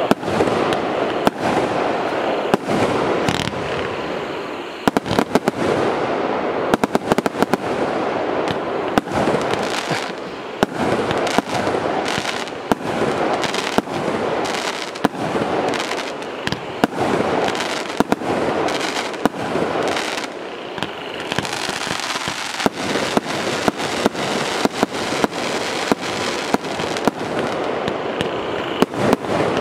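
A 100-shot, 0.8-inch firework cake (battery) firing in rapid succession: an unbroken run of sharp shots and bursts, several a second, over a continuous noisy haze.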